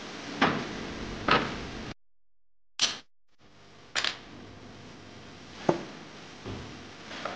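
Wood knocking on a wooden workbench as boards and round dowels are handled and set down: a series of sharp knocks about a second apart, broken by a stretch of dead silence about two seconds in.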